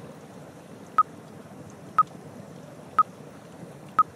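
Workout countdown timer beeping, one short high beep each second, four times, marking the last seconds of a rest break. A faint steady hiss lies beneath.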